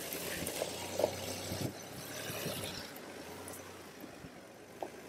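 Land Rover Discovery crawling slowly over a stony track: a faint low engine hum that fades away partway through, under a hiss of tyres on loose stones and a few small knocks.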